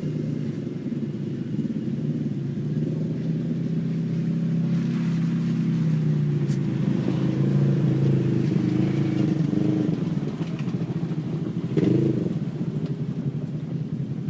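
Engines of non-turbo off-road race vehicles running, their pitch rising and falling as they change speed, a little louder in the middle, with a brief sharp sound about twelve seconds in.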